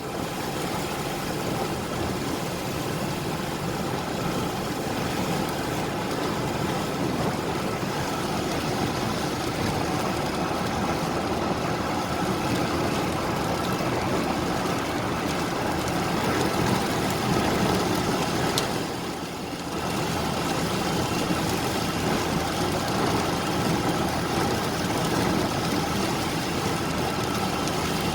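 Road traffic: motor vehicle engines running and idling in a steady mix, briefly quieter about two-thirds of the way through.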